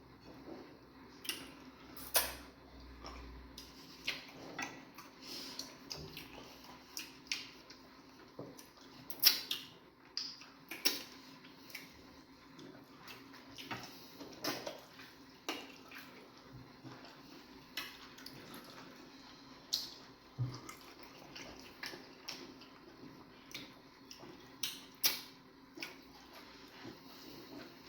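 Close-up eating sounds as fufu and egusi soup are eaten: wet smacks and chewing clicks coming irregularly, a few of them louder.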